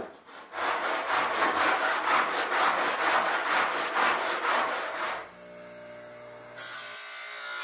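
Quick back-and-forth hand strokes, about three or four a second, deburring the table-saw-cut edge of a 5052 aluminium strip; they stop about five seconds in. Then a bench grinder's motor hums, and near the end a steady hiss comes in as its wheel works the strip's edge.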